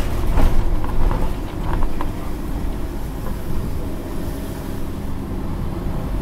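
Interior sound of a Scania OmniCity N230UD double-decker bus under way: its five-cylinder diesel engine runs with a steady low rumble and a held engine note. Light clicks and rattles from the bodywork come in the first couple of seconds.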